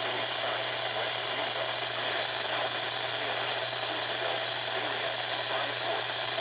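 Radio receiver static: a steady hiss with crackle over a low hum, with no program audible through it.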